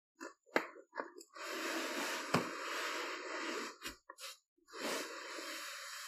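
A cardboard box being handled and opened, scraping and rustling in two long stretches with a few sharp knocks and clicks in between.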